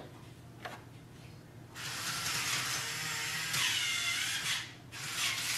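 Xerox B230 laser printer's internal mechanism running briefly: a steady hiss starts about two seconds in and stops about three seconds later, with a faint tone that dips and rises near the end.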